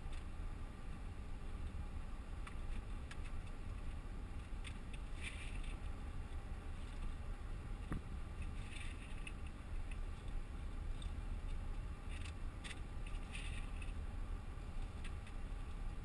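Steady low rumble of a car's engine and tyres heard from inside the cabin while driving slowly, with a few faint ticks and rustles.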